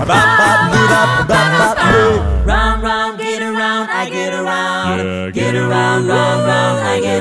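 An a cappella vocal group performing with voices only, no instruments: vocal percussion keeps a beat under the singing for the first couple of seconds, then a low voice swoops down in pitch and the group moves into held chords in close harmony.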